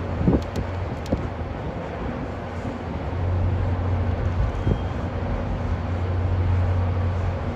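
Steady low hum of a large engine running, with a few low thumps in the first second and another about halfway through.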